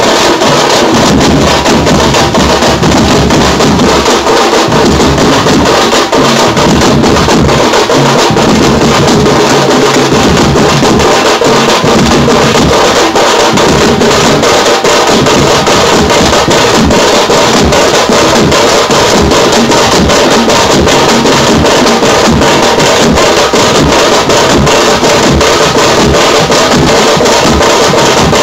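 A tamte drum band playing loud and fast: small frame drums struck with sticks over large double-headed bass drums, in a dense, driving rhythm that never lets up.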